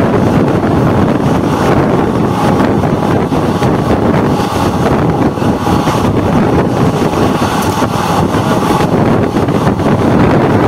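A passenger train's wheels running on the rails at speed, with rushing wind buffeting the microphone at the open coach doorway, loud and steady throughout.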